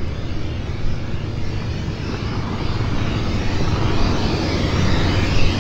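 Light aircraft engine running with a steady low hum, growing steadily louder as the plane approaches.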